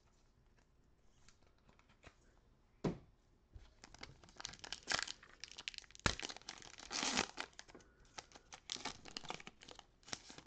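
Foil wrapper of a Panini Select football card pack being torn open and crinkled by hand. A thump about three seconds in and a sharp knock about six seconds in stand out against the crinkling.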